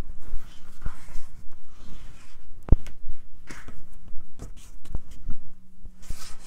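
Stretch-knit fabric rustling and sliding across a cutting mat as it is handled and smoothed, with a few light clicks, one sharper than the rest about two and a half seconds in.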